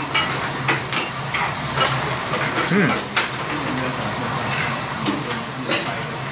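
Restaurant background: a steady hiss over a low hum, with a few light clicks of chopsticks against a plate and dishes.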